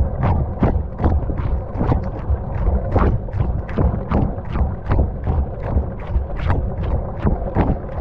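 Gorenje WA 65205 front-loading washing machine drum turning a wet wash load, heard from inside the drum: water sloshing over a steady low rumble, with sharp splashing knocks about three times a second as the load and water drop.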